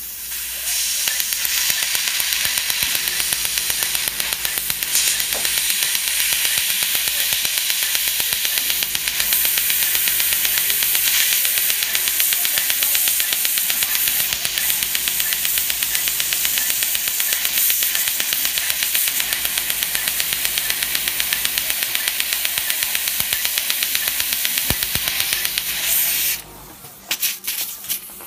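Fotona LightWalker Er:YAG dental laser firing at a tooth: a rapid, even train of sharp pops over the hiss of its water-and-air spray, ablating decay from the cavity. The firing stops suddenly near the end.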